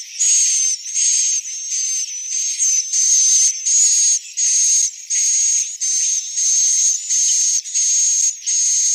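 Swiftlet call sound (suara panggil): a recording of high-pitched swiftlet twittering, the kind played in swiftlet houses to lure a colony in. It comes in short chirping bursts about twice a second, with a thin whistling tone running through each burst.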